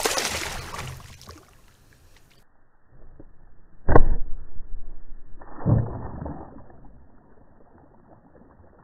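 Water splashing as a carp is let go over the side of a kayak. About four seconds in comes a sharp smack as a thrown harpoon strikes the water, followed by a second burst of splashing around the harpoon as a struck carp thrashes.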